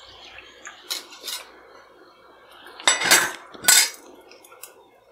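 Metal utensils, a slotted spoon and a wire-mesh skimmer, clinking and scraping against the kadhai as fried samosas are lifted out of the oil. Two light clicks come about a second in, then two louder clatters around the three-second mark, over a faint sizzle of the hot oil.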